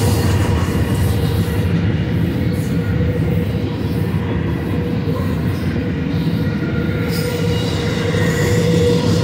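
Double-stack intermodal well cars loaded with containers rolling past: a steady rumble of steel wheels on rail, with a thin steady wheel squeal over it.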